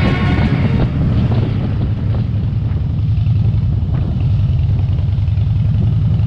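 Harley-Davidson V-twin motorcycle engine running at low road speed, deep and steady, with wind on the microphone.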